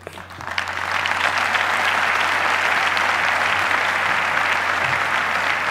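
Audience applauding, swelling over the first second into steady clapping.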